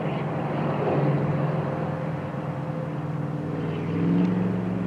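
Steady low engine drone with several held tones, swelling slightly about four seconds in.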